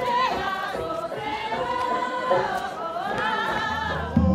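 Several voices singing a slow folk-style melody together, the pitch bending and held through long phrases. Near the end a louder, deep low sound comes in.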